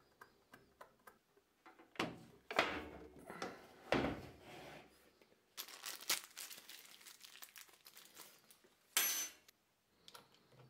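A small plastic parts bag crinkling and rustling as it is handled and opened, in several bouts, with a sharp crackle near the end. A few light clicks of metal parts being handled come first.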